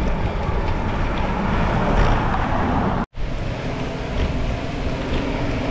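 Wind buffeting a bike-mounted camera's microphone while riding up a steep wet climb: a steady low rumbling noise that drops out for an instant about three seconds in.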